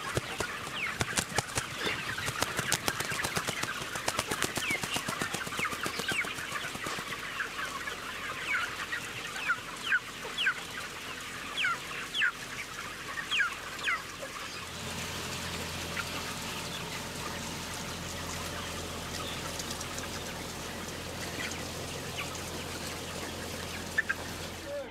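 A flock of broiler chickens peeping: many short, falling chirps over a dense background chatter, busiest in the first half and thinning out later. A low steady hum comes in about fifteen seconds in.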